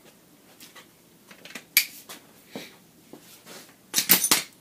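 A few sharp clicks, then a quick cluster of louder clicks and clatter near the end: hand tools being picked up and handled during motorcycle front-end work.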